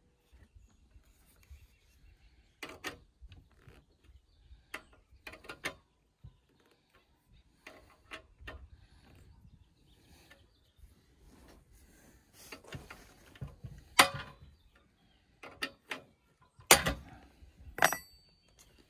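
Scattered clicks, rattles and knocks of a Stihl chainsaw and its chain being handled on a chainsaw mill frame. The louder, sharper knocks come in the second half, and one near the end leaves a short metallic ring.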